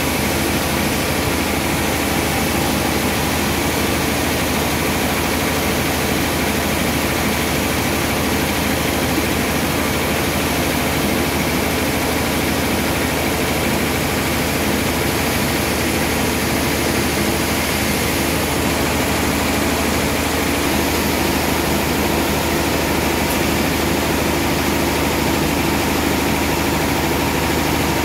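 Sawmill band saw machinery running steadily, an even, unbroken machine drone with no cut into the wood.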